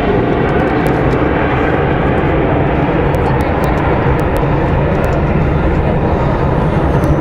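Steady, loud jet rumble from the Snowbirds' formation of Canadair CT-114 Tutor jets, each powered by a single small turbojet, flying past overhead.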